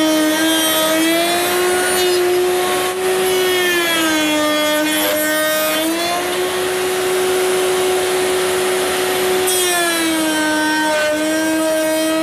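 A table-mounted wood router spins a tongue-cutting rail-and-stile bit at high speed: a steady high whine with a hiss over it. Its pitch sags twice as the bit cuts across the end of a door-frame rail, then recovers.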